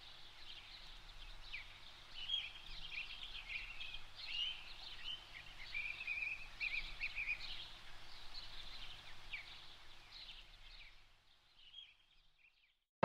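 Birdsong: several small birds chirping and twittering in quick, short calls over a faint steady low hum, fading out near the end.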